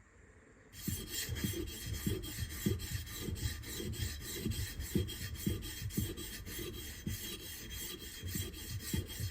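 A steel chisel being rubbed back and forth on a wet coarse diamond sharpening plate, in quick, even strokes about three a second, starting about a second in. This is the grinding that raises a burr on the chisel's secondary bevel.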